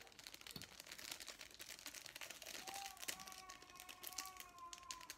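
Faint crinkling of a small plastic instant-noodle seasoning sachet being handled, a rapid run of fine crackles. A faint steady two-note tone joins a little past halfway and stops just before the end.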